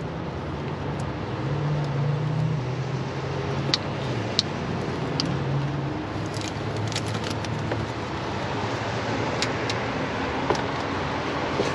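Car engine running, a low hum that rises and falls in pitch over a steady rush of noise, with a few sharp clicks scattered through it.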